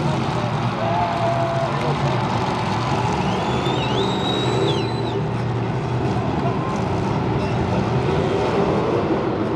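Several demolition derby cars' engines running together, a dense steady engine din. About halfway through, a high whistle-like tone sounds for a second or two.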